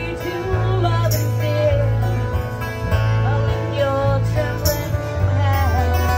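Live band music: strummed acoustic guitar over electric bass guitar, with a melody line that wavers and bends in pitch.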